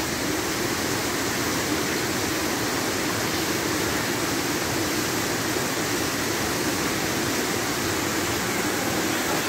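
Steady, unbroken rush of flowing water, an even hiss with no separate splashes.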